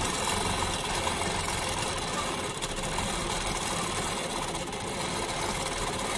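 Longarm quilting machine running steadily, its needle stitching continuously as the head is moved across the quilt in free-motion quilting.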